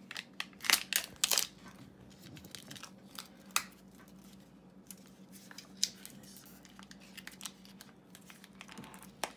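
Sealed lid being peeled off a small plastic toy tub: a quick run of crinkly tearing crackles about a second in, then a few single sharp clicks and light handling of the plastic cup.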